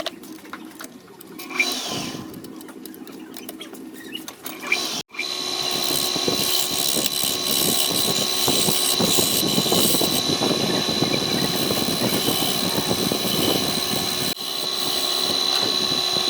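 Wood lathe running with a steady motor whine while a turning tool scrapes and cuts the spinning wood, starting abruptly about five seconds in after a stretch of quieter small clicks.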